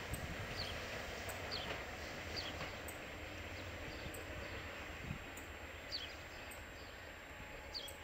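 Amtrak passenger train receding into the distance, its low rumble slowly fading, with birds chirping: short, downward-sliding chirps repeating every second or so.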